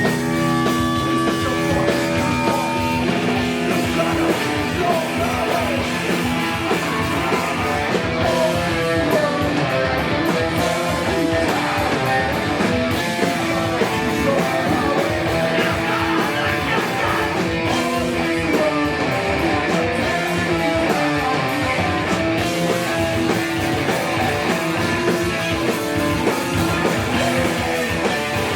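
Live rock band playing loud and without a break, with guitar over drums.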